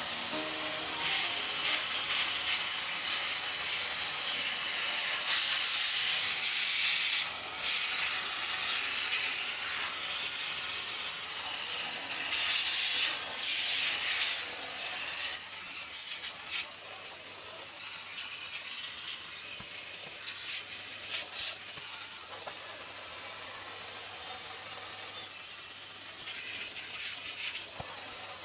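Vacuum cleaner suction through a hose wand held to a handheld Dyson's cyclone and dust bin: a steady hissing rush of air that surges a couple of times as the nozzle is worked against the parts. It drops noticeably quieter about halfway through.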